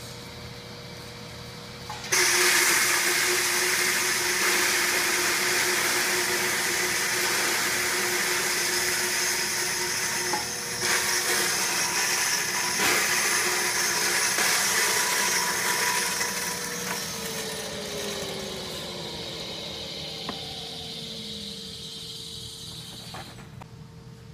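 Corenco industrial disintegrator running at 1750 RPM with a quarter-inch shredder screen. It hums steadily until, about two seconds in, diced frozen pear is poured in and a loud grinding rush starts abruptly as the fruit is shredded. The grinding eases off over the following seconds, and near the end a tone falls in pitch as the rotor winds down.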